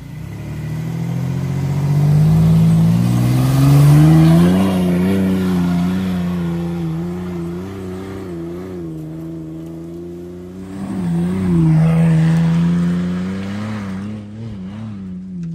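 Mitsubishi Montero engine revving hard under load as the truck climbs a steep off-road slope. The engine note rises over the first few seconds, wavers as it pulls, then dips and surges again about eleven seconds in.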